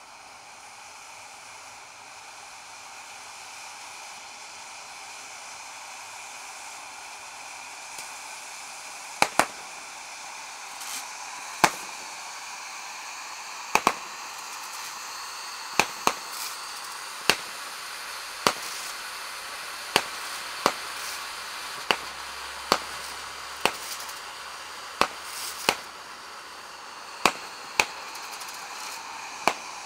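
Firework fountains hissing steadily and slowly growing louder. From about nine seconds in, a run of sharp bangs, one or two a second, comes from fireworks shooting upward.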